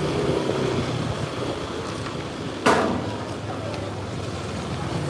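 Yamaha motor scooter running at low speed, its engine a steady low hum, with a short, sudden loud noise about two and a half seconds in.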